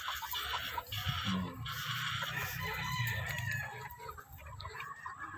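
Flock of young gamefowl chickens clucking and calling, with a rooster crowing.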